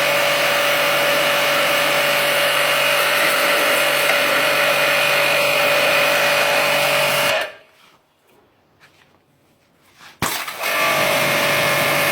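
Electric blower motor running with a steady whir of moving air and a humming tone. It cuts off sharply about seven seconds in and is near silent for almost three seconds. Then, after a click, it runs again.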